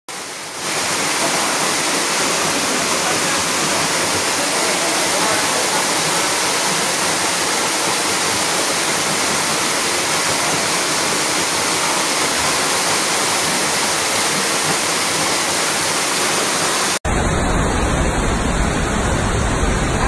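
Waterfall pouring into a plunge pool: a loud, steady rush of falling water. About 17 seconds in it cuts off abruptly, and a deeper rushing noise replaces it.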